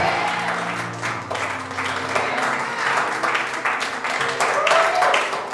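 Church congregation clapping and calling out over instrumental music whose held notes fade out about two seconds in.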